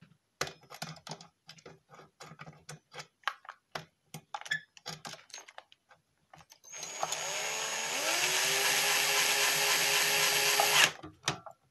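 Cordless drill/driver driving a screw. Light clicks and taps come first, then the motor spins up with a rising whine, runs steadily for about four seconds and stops suddenly.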